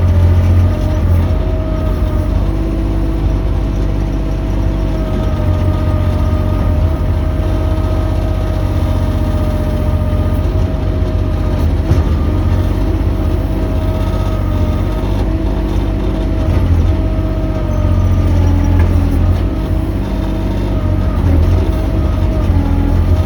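Mini excavator engine running steadily, with a steady whine riding over its low drone.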